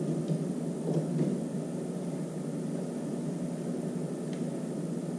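Steady low hum with a few faint clicks as a smoke detector's metal mounting plate is fitted against a ceiling electrical box.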